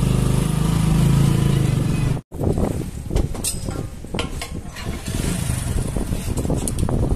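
Motorcycle engine running steadily. An abrupt cut comes a little over two seconds in, after which the engine sounds lower and uneven, with scattered clicks and knocks.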